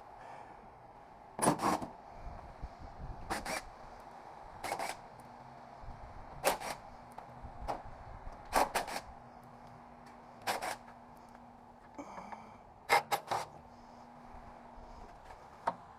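Sharp metallic clicks and clacks of hand tools working the metal parts of a mini split AC unit being dismantled for scrap, about nine at irregular intervals with some in quick pairs, over a faint steady hum.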